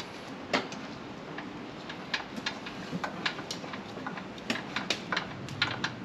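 Irregular light clicks and taps of parts and tools being handled as a front suspension A-arm is worked into place on a side-by-side, growing more frequent toward the end.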